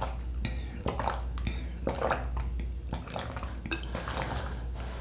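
Eating sounds: a utensil clicking and knocking against a food container, a dozen or so short taps spread unevenly, with soft mouth sounds between.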